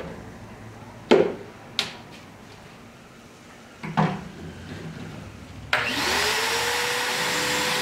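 A few sharp wooden knocks as a plywood board is set in a pocket-hole jig. About three-quarters of the way in, a wet/dry shop vacuum is switched on; its motor spins up into a steady whine with rushing air, ready to catch the sawdust from drilling.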